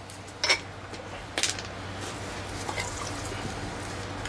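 Handling noise from a brake rotor and hub assembly and its tools: two sharp metal clicks in the first second and a half, then softer ticks and rustling as the rotor is lifted and turned over. A low steady hum runs underneath.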